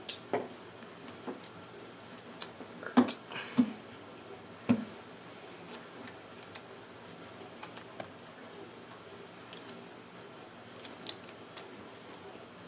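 Sleeved playing cards being shuffled and handled, with several sharp taps of cards and a plastic deck box on a wooden table, the loudest a few seconds in.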